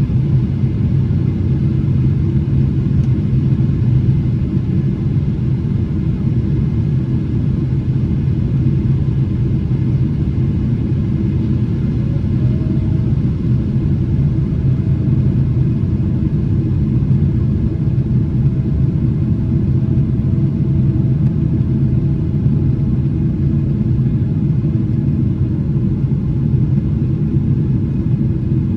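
Steady low rumble of a Boeing 777-300ER's GE90 jet engines and airflow heard inside the passenger cabin, with a faint thin tone added for a stretch in the middle.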